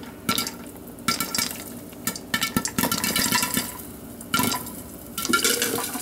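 Lidded metal pot being shaken back and forth on a stove burner grate: metal scraping and the glass lid rattling in several bouts, with popcorn kernels popping in hot oil inside.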